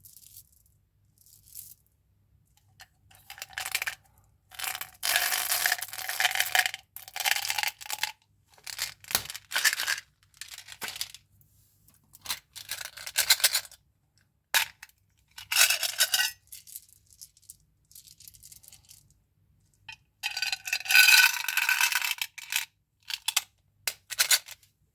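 Candy and gum packaging being handled and opened: irregular bursts of crinkling and tearing wrappers, with small clicks and rattles between them. Two of the bursts are longer than the rest.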